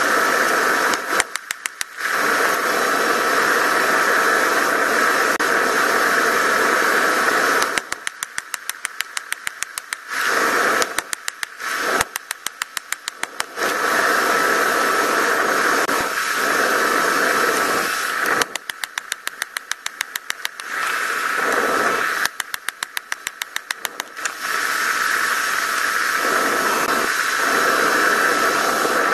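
A forge blowing as the steel reheats: a steady rushing roar that drops away several times. The quieter stretches carry runs of rapid clicking.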